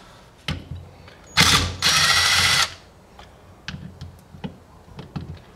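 Cordless impact driver running in one burst of about a second, hammering as it backs a bolt out of a 110cc engine's case cover, with light clicks and taps of metal parts and tool handling around it.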